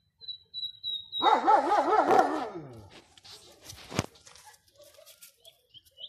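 A nightingale repeats a short, high whistled note four or five times. About a second in, a dog breaks in with a loud howl lasting over a second, wavering in pitch and falling away, followed by faint clicks and one sharp tap.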